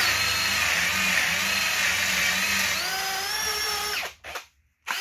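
Cordless drill boring a 35 mm hinge-cup hole through a Kreg concealed-hinge jig into a red oak cabinet door: a steady motor whine with the bit cutting, rising in pitch near the end of about four seconds of drilling before it stops. Then two short restarts of the drill.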